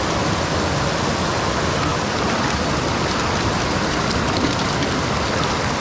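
Mountain stream rushing over rocks: a steady, even roar of water.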